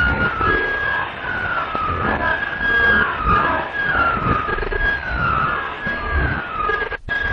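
Edited, siren-like sound: a high tone slides downward over and over, about once every 0.7 seconds, over low, uneven thumps. It cuts out briefly near the end.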